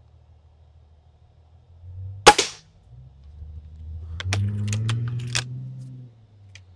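An air rifle shot: one sharp crack with a short ringing tail about two seconds in, then several quicker, fainter clicks and snaps a couple of seconds later, over a low rumble that swells and fades.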